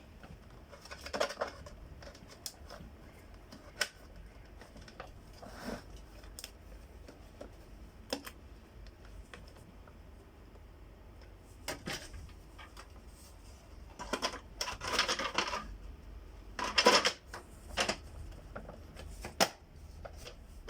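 Scattered clicks, knocks and short scrapes of hard plastic parts being handled and fitted together on a Samsung SC4520 vacuum cleaner, busiest a little past the middle.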